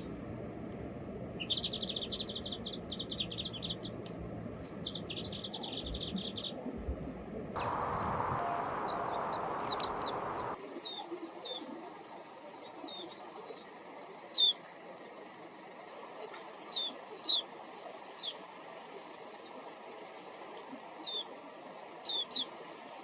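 Japanese white-eyes calling. Two rapid, high chattering trills come in the first seven seconds. After a few seconds of hiss, a scattering of short, thin, high down-slurred notes follows, the loudest about 14 seconds in.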